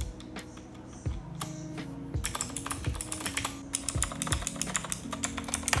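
Typing on a Machenike K600 mechanical keyboard with clicky blue switches: scattered key presses at first, then a fast, dense run of clicking keystrokes from about two seconds in. A soft beat of background music runs underneath.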